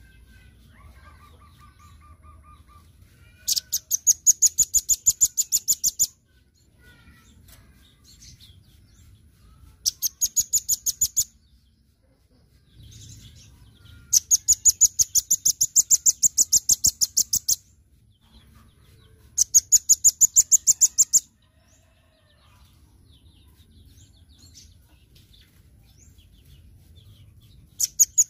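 Velvet-fronted nuthatch calling in bouts of rapid, high, evenly spaced chip notes, about eight a second, each bout lasting from one and a half to three and a half seconds. There are four bouts, and a fifth starts at the very end.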